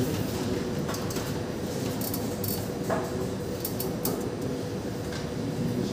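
Room noise with a steady faint hum and scattered light clicks and rustles, as of paper worksheets being handled.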